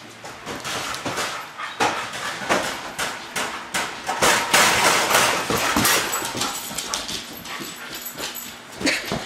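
A dog making noises as it noses a latex balloon across a wooden floor. Dense scuffing and rubbing noises run through it, loudest about four to six seconds in.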